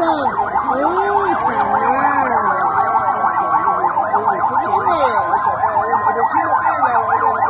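Several emergency-vehicle sirens sounding together: a rapid yelp sweeping up and down several times a second, overlaid by slower wails that rise and fall over a couple of seconds.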